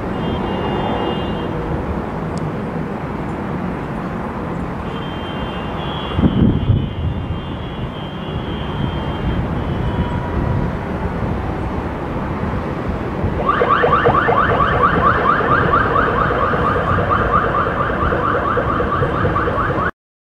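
Outdoor city background noise with a low traffic rumble. About two-thirds of the way in, a louder high-pitched tone starts pulsing rapidly and keeps going until the sound cuts off abruptly near the end.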